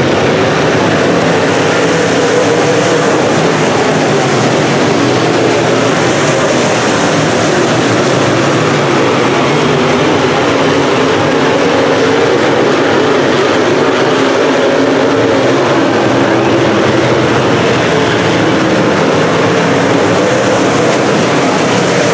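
A field of dirt track modified race cars running at speed together, their V8 engines making a loud, steady, blended drone with no breaks.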